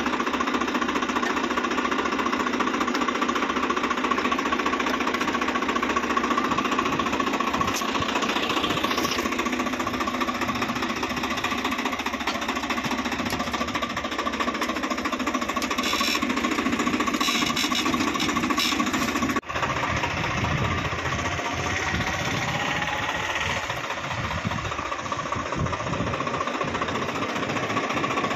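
Swaraj tractor's diesel engine idling steadily, with a momentary drop about two-thirds of the way through.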